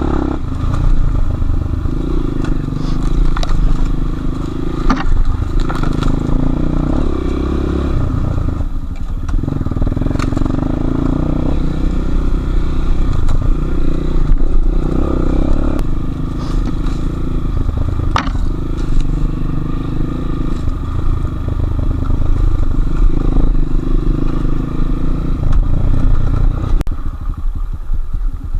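Enduro motorcycle engine running under changing throttle, revs rising and falling as it is ridden over rough ground, with clattering and sharp knocks from the bike and terrain.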